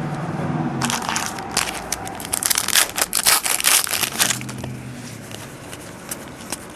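Crinkling and crackling of a plastic trading-card pack wrapper being handled, dense and rapid from about a second in until about four and a half seconds, then dying down.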